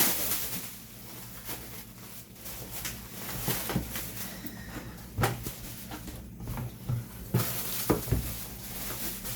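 Motherboard box and packaging being handled and opened: light rustling with scattered knocks and clicks, a few of them sharper in the second half.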